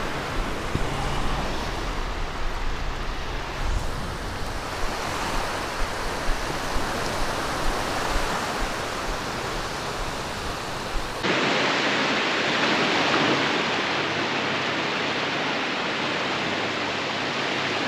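Surf washing steadily onto the beach, with wind gusting and buffeting the microphone. About 11 seconds in the sound changes suddenly to a brighter, steadier wash of breaking waves with less wind rumble.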